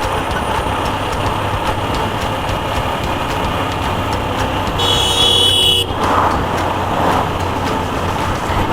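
TVS Apache RTR 160 4V motorcycle riding on the road, its single-cylinder engine under steady road and wind noise. A vehicle horn sounds for about a second just past the middle.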